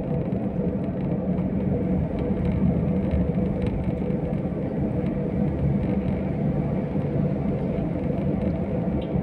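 A car driving, heard from inside its cabin: a steady low rumble with no change in level.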